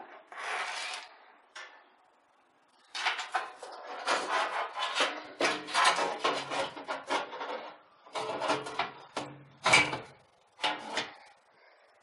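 Metal-cased power supply being pushed into its bay in a steel PC case, its housing scraping and rubbing against the case frame in repeated bursts. A sharper knock near the end comes as it seats.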